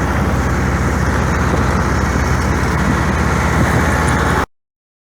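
Engine running steadily at a constant speed, cutting off abruptly about four and a half seconds in.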